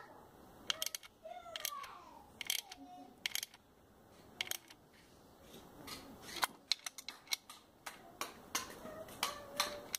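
Small ratchet wrench clicking irregularly as the bolts of a new ignition coil are snugged down.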